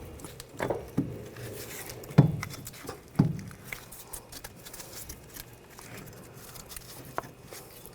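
A few separate metal knocks and clunks as the rear axle shaft and hub parts are pushed and handled, the loudest about two seconds in.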